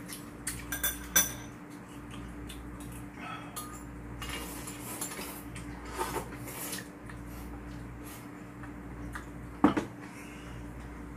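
Chopsticks and spoons clinking against bowls during a meal, with a few sharp clinks about a second in and a loud one near the end. In between comes a stretch of noodles and soup being slurped.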